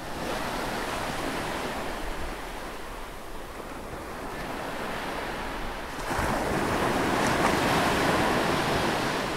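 Ocean waves washing in, a steady rushing wash that swells louder about six seconds in and eases slightly near the end.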